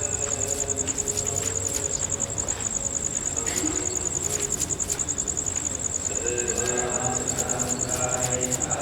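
Crickets chirping in a steady, rapid, high-pitched pulsing trill. Faint voices join in from about six seconds in.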